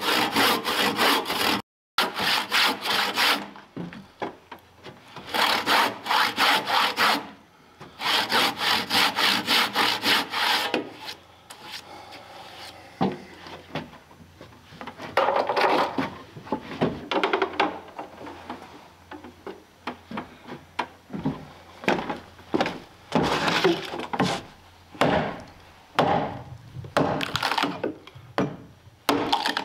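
A hand saw cutting into the notch of a softwood log in quick back-and-forth strokes, in three runs with short pauses over the first ten seconds or so. After that come scattered softer scrapes and knocks of wood being handled.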